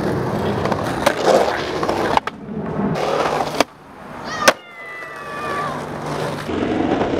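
Skateboard wheels rolling on concrete and asphalt, with sharp clacks of the board popping and landing. The loudest clack is a kickflip landing about four and a half seconds in, followed by a pitched sound that slides slowly downward.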